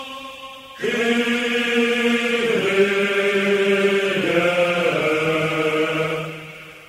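Slow chanted singing: long held vocal notes. A new phrase enters about a second in and steps down in pitch twice before fading near the end.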